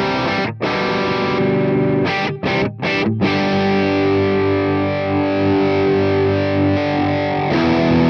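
Electric guitar played through a Boss DS-1-style distortion model on a Sonicake Matribox II Pro. Short, choppy distorted chords give way about three seconds in to one long held chord. Near the end the gain is turned up from low to high, and a louder, grittier chord is struck.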